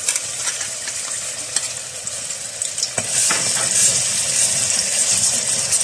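Hot oil sizzling as onion and yogurt paste goes into a metal pot of whole spices and is stirred with a ladle; the sizzle gets louder about three seconds in, with a few clicks of the spoon against the pot.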